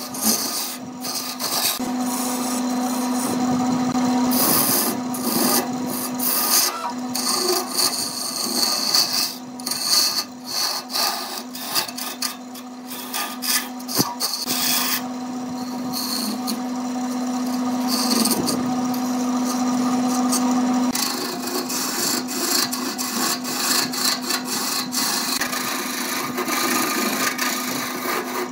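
Wood lathe running with a steady motor hum while a hand-held turning chisel cuts the spinning wood blank, a rough scraping, rasping cut that comes and goes in uneven spells as wood chips fly off.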